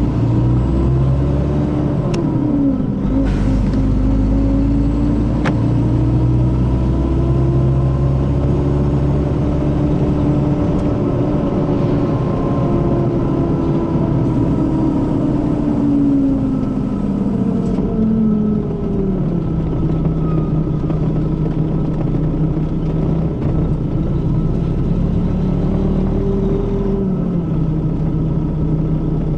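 Mercedes-Benz O500RS coach's diesel engine running under way, its pitch rising a couple of seconds in and holding high before falling away about two-thirds through, then running lower and steady with a brief rise near the end. The engine has a sound likened to the older Mercedes-Benz O400RSE.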